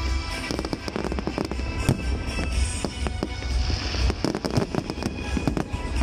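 Fireworks display: aerial shells bursting one after another with sharp bangs and crackling. Music plays underneath.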